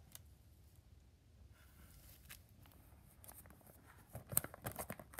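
Plastic sleeve page of a ring binder being turned: faint rustling, then a quick burst of crinkling and clicks about four seconds in.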